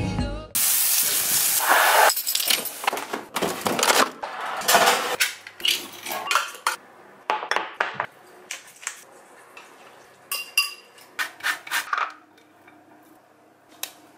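Kitchen food-prep sounds: utensils scraping and clinking against a ceramic bowl and plate, with many short knocks. They are busiest and loudest in the first few seconds and thin out near the end.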